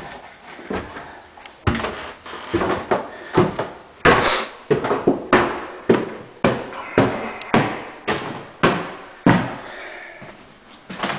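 Footsteps climbing a wooden staircase: a steady run of knocking treads, about two a second, starting about two seconds in and stopping near the end.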